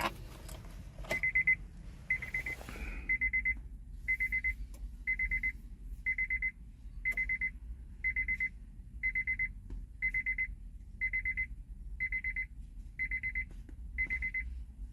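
Electronic beeper sounding a steady series of high, buzzy beeps, about one a second, each a little under half a second long, starting about a second in. It sounds with the ignition switched off during immobilizer key programming.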